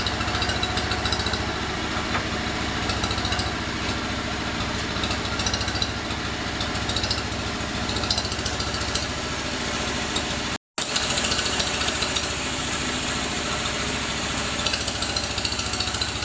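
Engine-driven sawmill machinery running steadily, a low engine drone with a fast, even rattle, cut off briefly about ten and a half seconds in before it carries on.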